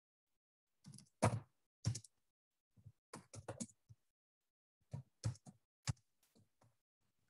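Typing on a computer keyboard: irregular runs of short key clicks, some fifteen keystrokes in small clusters with pauses between.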